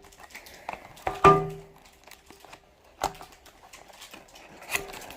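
A toy's packaging being handled and opened, with scattered clicks and knocks. About a second in, a louder knock comes with a brief pitched ringing tone.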